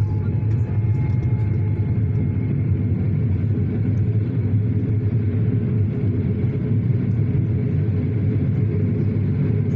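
PKP Intercity passenger coaches rolling past the platform with a steady low rumble. A faint high squeal sounds over the rumble for the first two seconds or so.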